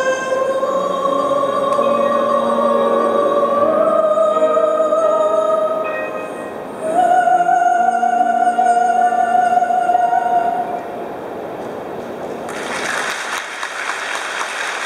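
Woman singing the closing long held notes of a slow classical-style song. The final high note is held for about four seconds and then fades. Near the end the congregation breaks into applause.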